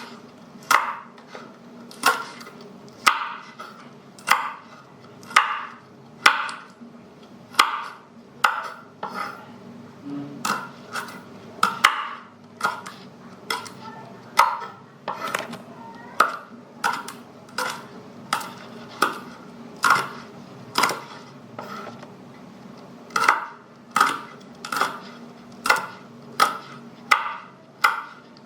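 Knife slicing chili peppers on a cutting board: a sharp tap of the blade on the board with each cut, roughly one a second, quicker in places.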